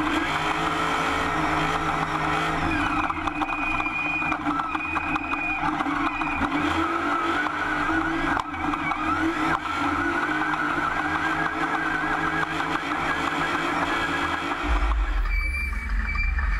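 Off-road race car's engine running hard at speed, heard from inside the cockpit, its pitch shifting a little as the throttle changes. About two seconds before the end the sound switches to a heavy low rumble.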